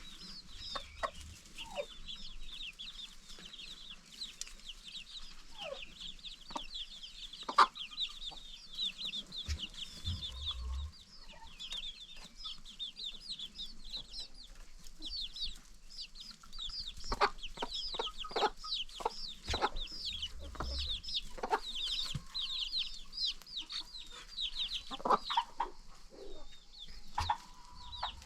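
Chickens clucking, over a dense, rapid high chirping that runs on throughout, with sharper calls now and then.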